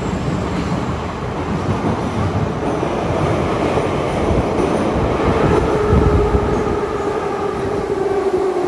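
An 81-718/719 metro train running with steady rumbling wheel noise. About five seconds in, a whine sets in and slowly falls in pitch: the characteristic sound of these cars' thyristor-pulse control as the train brakes.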